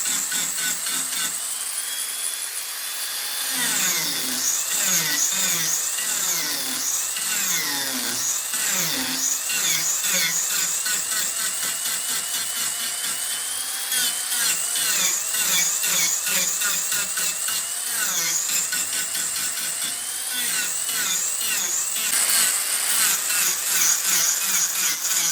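Mini angle grinder cutting and shaping wood: its high motor whine dips and recovers over and over as the disc bites into the wood, over a rough grinding rasp.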